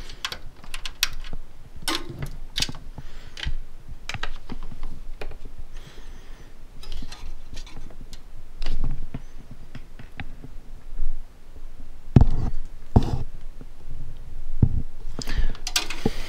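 Irregular clicks, taps and knocks of cable plugs and connectors being handled and tried in the ports at the back of a desktop computer, with a few heavier knocks about three quarters of the way through.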